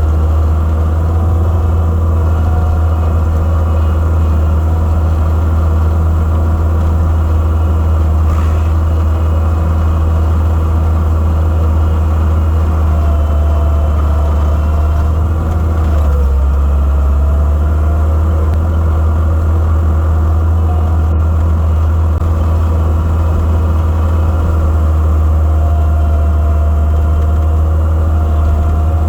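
Gehl 5635SX skid steer's diesel engine running steadily under load, heard from onboard, with a deep, constant drone. Its tone shifts slightly about halfway through.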